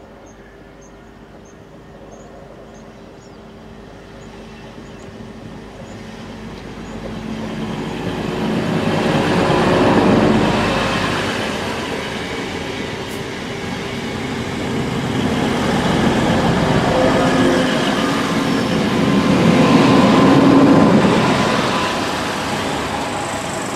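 Class 185 diesel multiple unit approaching and passing close by: its Cummins underfloor diesel engines and wheels on the rails grow louder to a peak about ten seconds in and stay loud as the carriages go by, peaking again near twenty seconds. Birds chirp faintly in the first few seconds.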